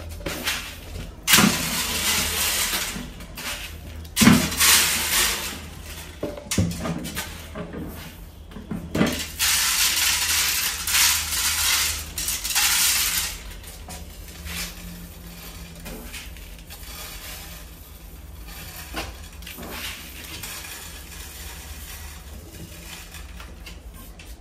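Dry rice grains poured from a plastic jar, hissing and pattering onto the glass floor of a tank in several pours through the first half, with a few sharp knocks between them. After that only faint, scattered grain sounds.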